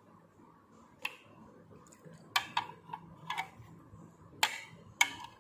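A metal spoon clinking against a ceramic plate while scooping jelly and syrup: about seven short, sharp clinks spread unevenly over the seconds, a couple of them close together.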